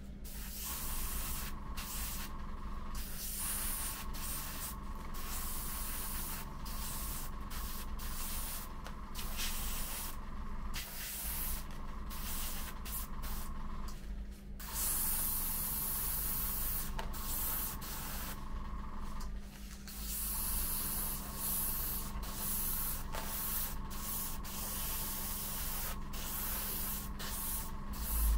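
Airbrush hissing as it sprays paint onto plastic model parts, in many bursts that stop and start as the trigger is worked, over a steady low hum.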